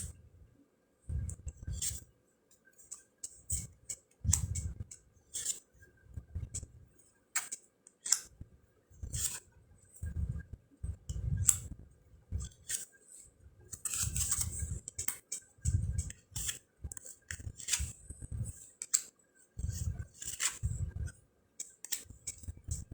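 A deck of round cardstock fortune cards being handled and flipped through: a string of irregular card flicks, slides and light taps on the table, with soft low thumps of handling.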